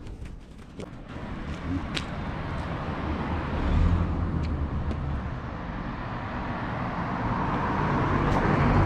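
Road traffic: a motor vehicle's engine and tyre noise building and swelling toward the end. A few light clicks sound in the first two seconds.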